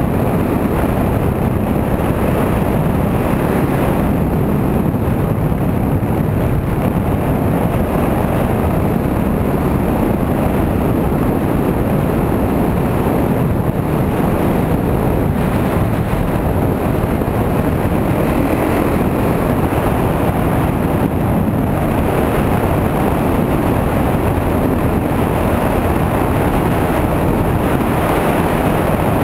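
Dirt bike engine running steadily at road speed, with wind rushing over the helmet-mounted microphone.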